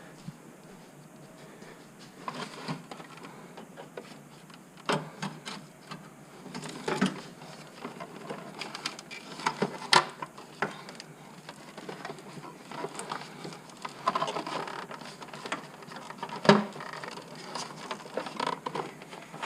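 Hands working in a car's engine bay: irregular clicks, taps and knocks of parts and wiring being handled and fitted, with two sharper knocks, one about halfway through and one a few seconds before the end.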